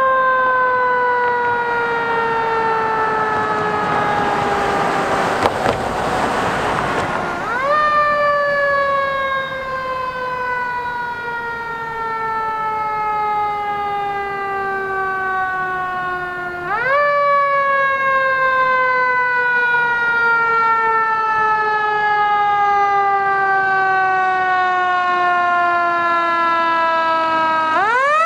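Fire engine's mechanical siren, spun up sharply and then left to wind down slowly in pitch, starting over twice in the middle and again near the end. A rushing hiss swells over the first several seconds and stops about seven seconds in.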